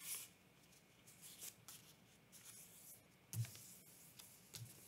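Faint rustling and scraping of a sheet of paper being creased by hand along a fold, with a soft thump about three and a half seconds in.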